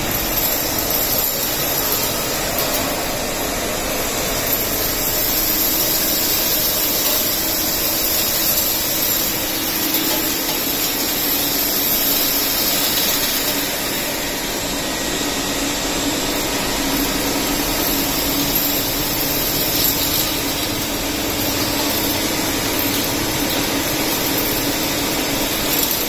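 Vacuum cleaner running steadily while its floor nozzle is pushed over a concrete floor, sucking up dust and grit: a loud, even rush of air over a steady hum.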